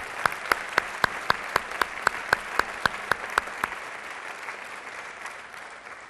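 Audience applauding, with one nearby clapper's sharp claps standing out at about four a second. The claps stop a little past halfway, and the applause dies away near the end.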